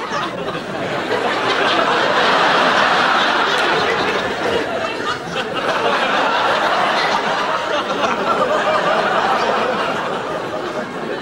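Studio audience laughing, swelling about a second in and tapering off near the end.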